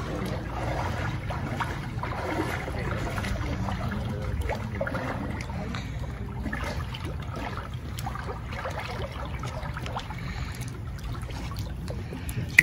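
Pool water sloshing and lapping as people wade waist-deep through a swimming pool, over a steady low rumble.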